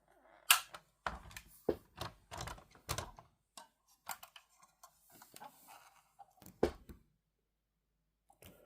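Scattered clicks and knocks of a 1:18 diecast model car being handled, its parts tapping and clacking. The sharpest knock comes about half a second in, with a quick run of clicks over the next few seconds and a few more later.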